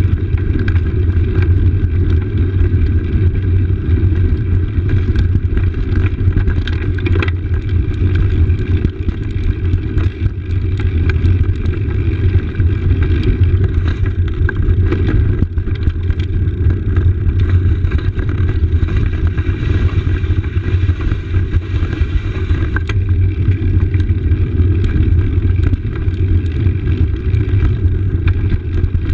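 Steady low rumble of a bicycle's tyres rolling over stone paving slabs, with scattered light clicks and rattles, heavily mixed with wind on the microphone.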